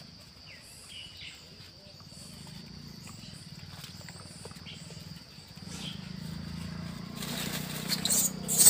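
Outdoor ambience: a steady high insect drone with scattered short chirps over a low hum. From about seven seconds in, a crackling rustle builds and is loudest near the end.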